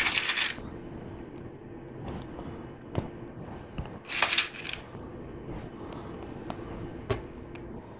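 Small hard plastic LEGO Technic pieces clinking and rattling as they are handled: a short clatter at the start and another about four seconds in, with a few sharp single clicks between as parts are fitted together.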